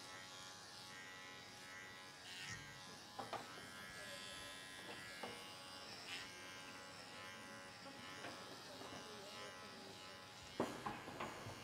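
Electric dog grooming clipper running steadily as it is worked through a Shih Tzu's long coat to cut it down, with a few light knocks near the end.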